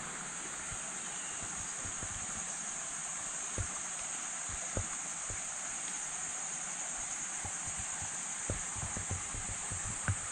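A steady, high-pitched chorus of forest insects, with a few soft low thumps scattered through it.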